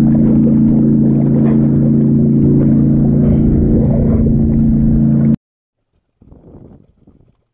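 Boat motor running steadily, an even low hum that cuts off suddenly a little over five seconds in.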